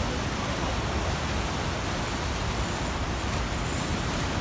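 Steady rushing of churning whitewater below a dam, an even noise heavy in the low end.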